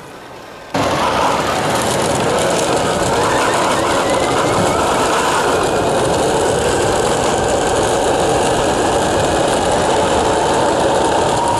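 Steady rattling rumble of a giant 3D-printed LEGO ride-on vehicle rolling along under power, starting abruptly about a second in.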